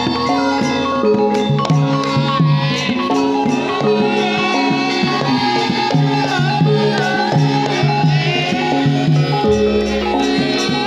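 Javanese gamelan ensemble playing for Lengger dance: bronze metallophones ring out steady interlocking notes over regular drum strokes, with a sliding melodic line above, and a deep low tone comes in near the end.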